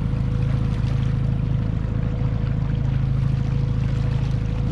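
Boat motor running steadily at trolling speed: a constant low drone with a thin, steady whine above it.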